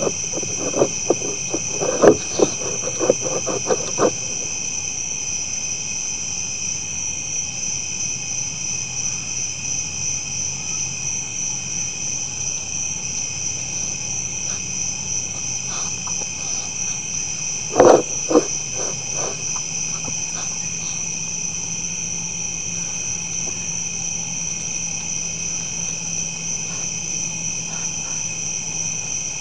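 Steady night chorus of insects, a pulsing high-pitched buzz with a few steadier shrill tones. Over it come bursts of sharp crunching clicks in the first four seconds and again briefly about 18 seconds in, from whitetail deer eating feed at a trough close to the microphone.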